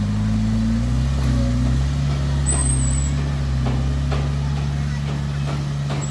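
Heavy diesel engine of a dump truck or earthmover running steadily, its pitch shifting down slightly about a second in. A brief high squeal sounds about two and a half seconds in, and sharp clicks and knocks follow in the second half.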